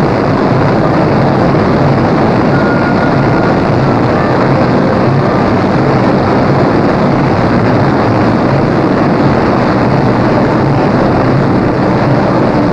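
Boeing 377 Stratocruiser's Pratt & Whitney R-4360 radial piston engines running, a loud, steady drone.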